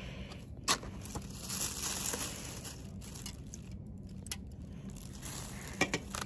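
Paper bag and plastic wrapping rustling and crinkling as takeaway food is unpacked on a table, with a few sharp clicks and taps, two close together near the end.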